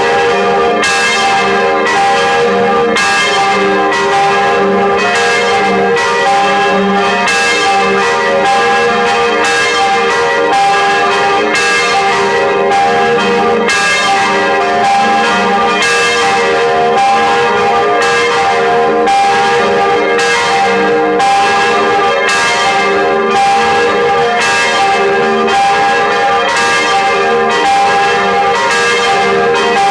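Church bells ringing a peal: several bells striking in a steady, continuous run of strokes, a little more than one a second, their tones ringing on and overlapping.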